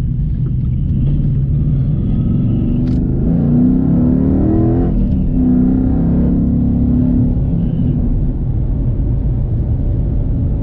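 Ford Mustang Boss 302's 5.0-litre Road Runner V8 heard from inside the cabin while driving: the engine pitch climbs as the car accelerates, breaks off briefly about five seconds in, then runs steady.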